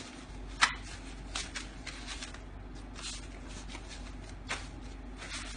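A hand sweeping loose paper banknotes across a pile makes a string of short rustling swishes. The sharpest comes about half a second in, and the rest follow every second or so.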